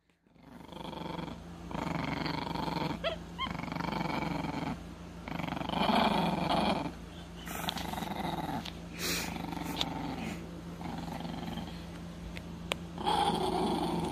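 Leopard growling in repeated rough stretches of about a second each, with a few short high squeaks about three seconds in.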